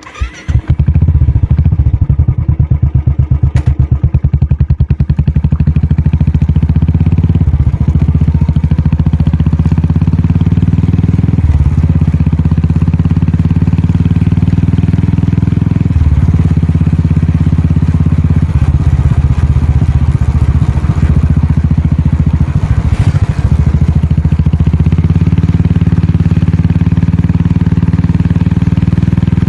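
Royal Enfield Classic 350 single-cylinder four-stroke engine running loud through a Wild Boar aftermarket exhaust while the bike is ridden, giving a rapid, deep, pulsing thump. The beat breaks off briefly and picks up again several times.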